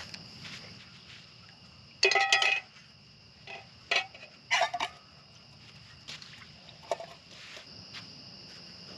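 Stainless-steel camp pot and bowl clinking and clanking together a few times, about two seconds in and again around four to five seconds.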